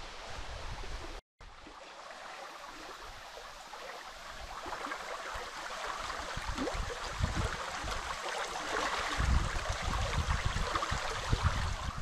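Shallow, clear mountain stream babbling over a stony riffle in a stone-walled channel, getting louder after a few seconds. The sound breaks off for a moment about a second in, and a low rumble of wind on the microphone comes in during the last few seconds.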